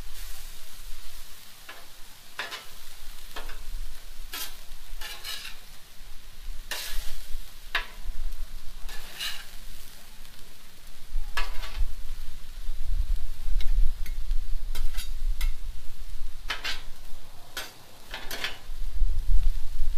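Metal spatula scraping and turning ground beef and diced vegetables on the steel top of a Blackstone flat-top griddle, in irregular strokes, with the food sizzling steadily underneath.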